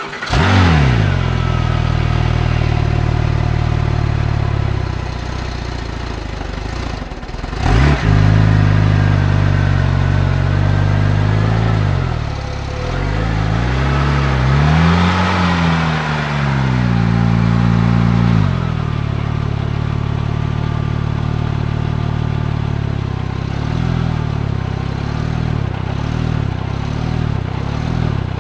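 Porsche 911 GT2 RS twin-turbo flat-six, heard at the exhaust. It fires with a flare and settles to idle, flares again about eight seconds in, is revved up and down a few times between about 12 and 18 seconds in, then idles. The car is said to have engine problems.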